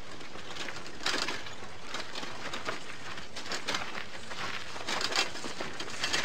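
Irregular crunching and crackling of footsteps through dry grass and stubble over a steady hiss, starting about a second in, with a few louder crunches.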